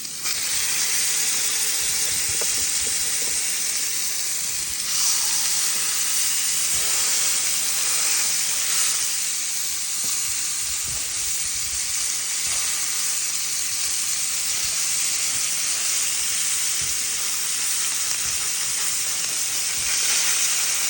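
Bison burger patties sizzling as they fry, a steady hiss that swells briefly about five seconds in and again near the end.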